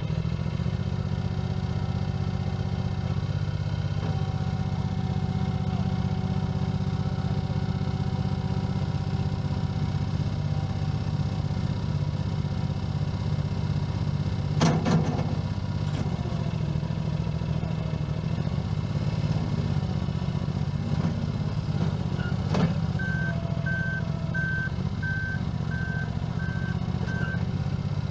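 2012 Mustang skid steer loader's engine running steadily, with a couple of clanks about halfway and two-thirds through. Near the end its backup alarm beeps about seven times at an even pace.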